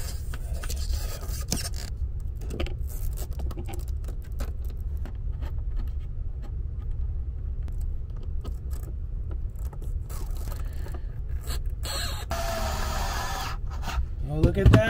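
Cables and metal terminal lugs on lithium batteries being handled, with scattered clicks and scrapes. Near the end a small cordless screwdriver whirs for about two seconds as it tightens a battery terminal nut. A steady low rumble runs underneath.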